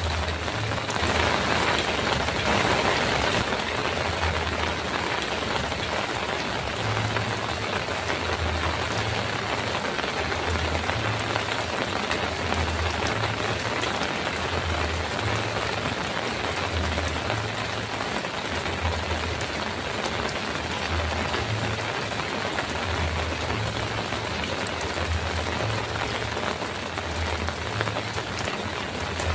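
Heavy rain drumming steadily on a metal roof, swelling louder for a couple of seconds about a second in. Under it, a low rumble pulses on and off about every second and a half.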